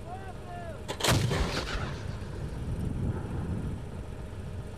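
A single shot from an S-60 57 mm anti-aircraft gun about a second in: a sharp crack followed by an echo that trails off over about a second.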